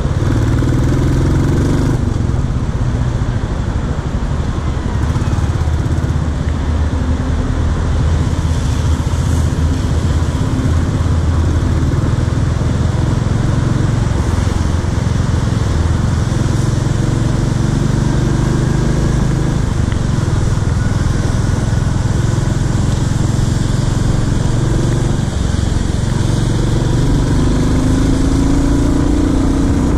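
Royal Enfield Classic 350's single-cylinder engine running steadily while the motorcycle is ridden on the road.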